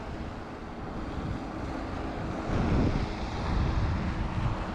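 Wind buffeting the microphone, a low rumble that gusts louder twice in the second half.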